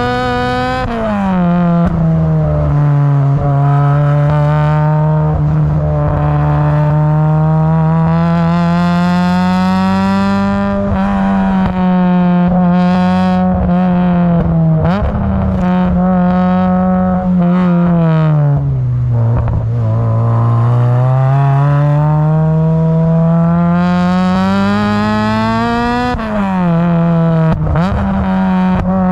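Honda Civic Type R EP3's 2.0-litre four-cylinder engine breathing through a Tegiwa 4-2-1 manifold and a silenced 70 mm exhaust, pulling hard with the revs rising and falling. The pitch drops sharply about a second in and again near the end, sinks lowest a little past halfway, then climbs steadily again.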